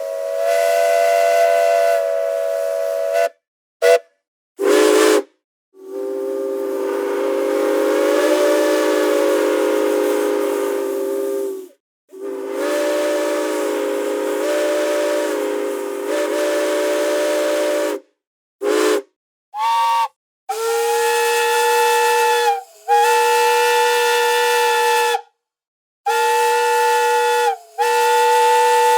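Steam train whistle blowing a series of blasts, each a chord of several steady tones over a hiss of steam. Long blasts of three to six seconds are broken by a few short toots, and the blasts from about two-thirds of the way through are higher-pitched and shorter.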